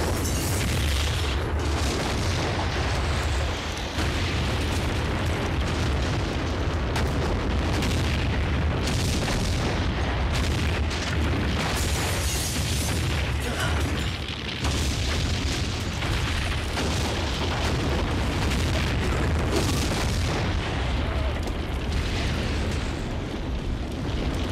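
A large house exploding and burning on a TV soundtrack: a loud, continuous low rumble of blasts and flames with crackling throughout.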